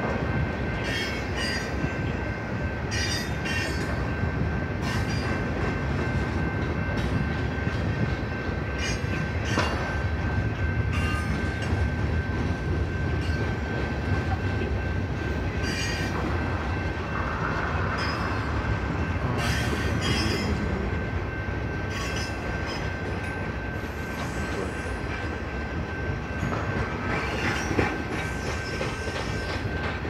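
Freight train cars rolling past across a grade crossing: a steady low rumble broken by irregular sharp wheel clicks, with a steady high ringing tone over it.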